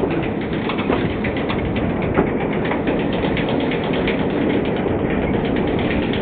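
Small narrow-gauge Hunslet steam locomotive pulling a short train away. It makes a quick, regular run of exhaust chuffs over a continuous hiss of steam.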